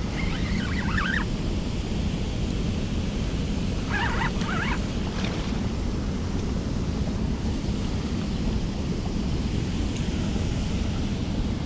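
Steady wind buffeting the microphone over the rush of a flowing river, with two brief bird calls: one right at the start and one about four seconds in.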